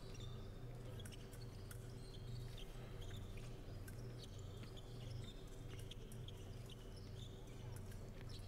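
Faint sound from an épée bout: fencing shoes squeaking briefly and repeatedly on the piste as the fencers move, with scattered light clicks, over a low steady hum.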